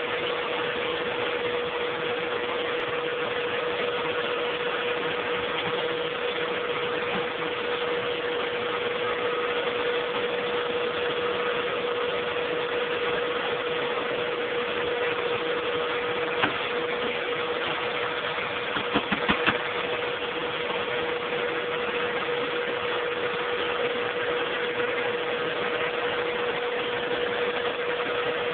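Vacuum cleaner running steadily: a constant motor whine over a rush of airflow noise. A single sharp knock comes a little past halfway, and a quick run of four knocks follows a few seconds later.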